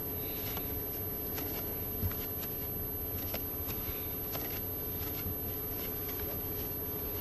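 Light metallic clicks and scrapes of a wrench turning a stud out of an aluminium intake manifold, with one slightly louder knock about two seconds in, over a steady background hum.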